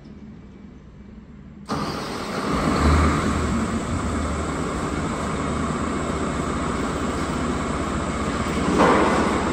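A heavy truck's engine comes in suddenly a little under two seconds in and then runs steadily with a low hum underneath, swelling briefly near the end.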